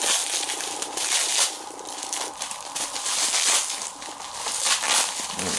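Hand-opening a tightly wrapped small pack of trading cards: irregular crinkling and rustling of the wrapping as it is pulled and worked open.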